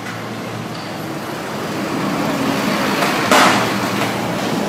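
A passenger minibus drives past close by over steady road traffic, its engine and tyre noise swelling as it nears. A short, sharp burst of noise comes at its loudest, about three seconds in.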